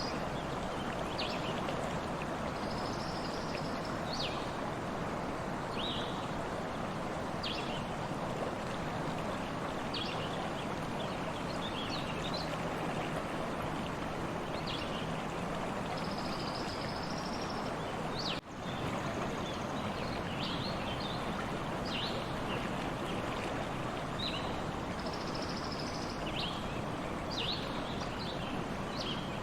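Stream water running steadily, with small birds giving short chirps every second or two. There is a brief dropout about two-thirds of the way through.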